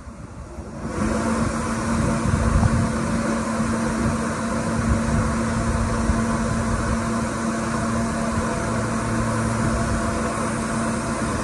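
New York City Subway L train running at the platform: a loud rumble and hiss with a steady hum, starting suddenly about a second in and holding steady.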